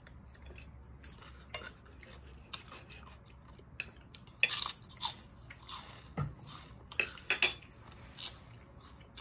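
Close-up eating sounds: chewing crunchy cucumber salad, with louder crisp crunches of a fried cracker about halfway through and again near the end, and a few light clinks of a metal fork on a ceramic plate.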